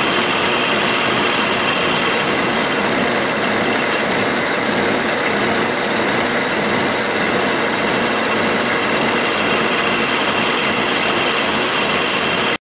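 Metal lathe turning the periphery of an as-cast aluminum handwheel: a loud, steady cutting noise with a high whine that fades out for a few seconds in the middle. It stops abruptly just before the end.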